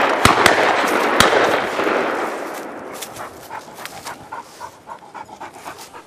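Shotgun shots fired at a flying pheasant: a few sharp reports in the first second or so over a loud rumbling wash that fades away over about two seconds.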